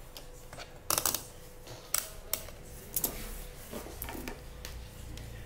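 Several sharp clicks and taps from multimeter probes and small tools being handled on a hard workbench, the loudest about a second in, then more at roughly one-second spacing.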